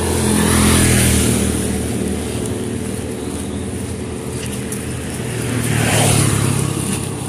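Motor vehicles passing close by on the road: one engine swells and fades about a second in, and a second passes around six seconds, over a steady hiss of traffic.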